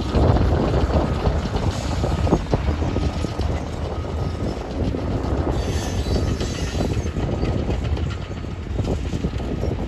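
Freight train of tank cars and a boxcar rolling slowly by, with a steady rumble of steel wheels on rail and faint clicking.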